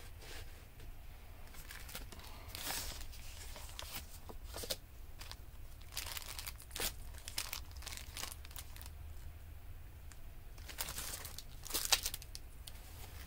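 Paper rustling and crinkling as the pages and paper embellishments of a handmade junk journal are handled and turned, in irregular bursts with a sharper rustle near the end.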